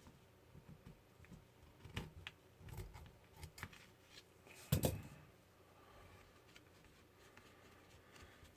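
Faint scattered clicks and rustles of hands working gauze and small tools, with a louder cluster about five seconds in.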